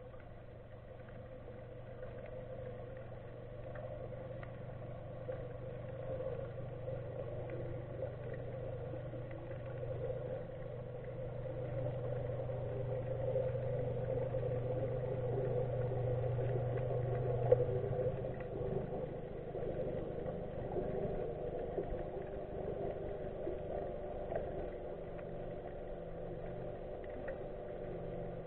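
Motorboat engine heard underwater, a steady hum that grows louder and then eases off as the boat passes. Its low note drops away about two-thirds of the way in. Faint scattered ticks can be heard under it.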